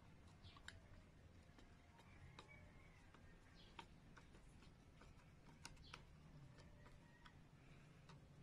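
Faint, irregular clicks and ticks of a screwdriver turning the mounting screws of an air-conditioner outlet, with a few brief faint squeaks.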